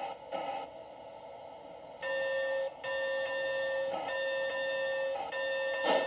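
Recorded steam locomotive whistle played by a MyLocoSound Premium steam sound card in a large-scale model locomotive: a steady chord of several tones, starting about two seconds in and blown as four long blasts with brief breaks between them, the first the shortest.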